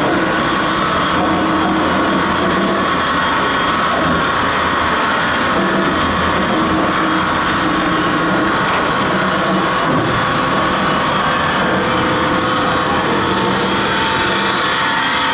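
Automatic knife grinding machine running with a loud, steady, even machine noise.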